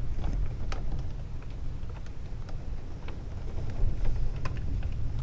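Rain during a lightning storm: a steady low rumble with many scattered sharp ticks of drops hitting.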